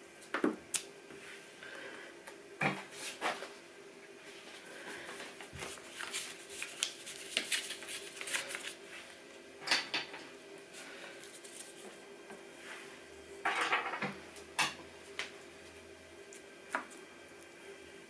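Magnets clicking against a stainless-steel fridge door as sheets of paper are pinned up, with paper rustling between the clicks. A steady hum runs underneath.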